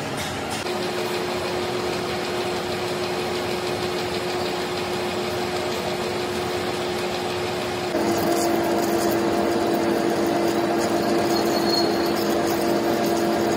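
Large engine lathe running, spinning a heavy shaft: a steady machine drone with a constant humming tone. About eight seconds in it suddenly gets louder and a second, higher tone joins.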